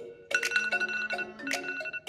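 Mobile phone ringtone playing: a short melody of plucked-sounding notes with a sustained high tone over them. The phrase restarts after a brief gap just after the start and loops about every two seconds.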